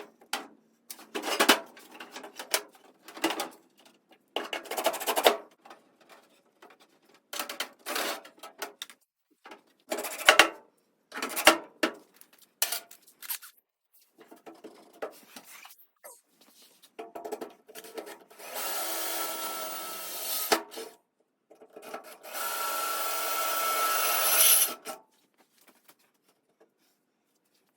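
Sheet-metal parts being handled and fitted, with irregular scraping, rubbing and knocks. After that, an electric drill runs twice for a couple of seconds each with a steady whine, drilling the seat-bolt holes through the steel floor pan.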